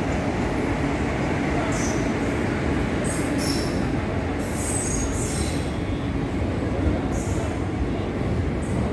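Passenger express train rolling along a station platform: a steady heavy rumble of the coaches, with short high-pitched wheel squeals coming every second or so.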